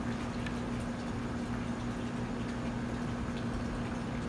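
A steady mechanical hum over a low rumble, with a few faint clicks.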